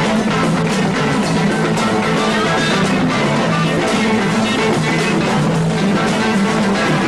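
Psychedelic rock band jamming instrumentally: electric guitars over a driving bass line and drum kit, playing continuously.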